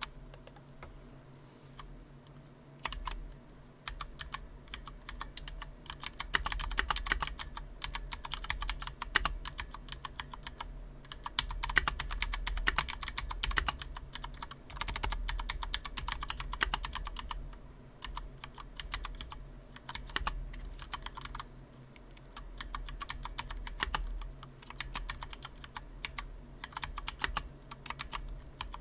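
Typing on a Cherry MX 3.0S wired mechanical keyboard: rapid keystroke clicks in bursts, broken by several short pauses. A steady hum of computer fans runs underneath.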